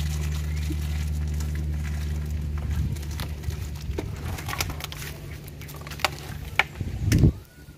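A steady low hum fades out about three seconds in. It is followed by footsteps and phone handling: scattered light clicks, then a loud knock near the end.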